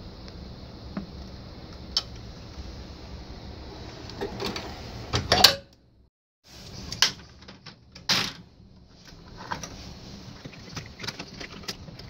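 Scattered clicks and knocks and a scraping, rustling stretch from hands working inside an opened, powered-up slot machine cabinet, over a steady low hum. The sound cuts out for under a second a little before the middle.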